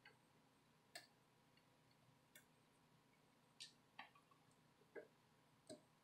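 Faint, irregular ticks and clicks of metal tweezers against a phone's motherboard and flex-cable connector while a ribbon cable is being seated, about seven in all against near-silent room tone.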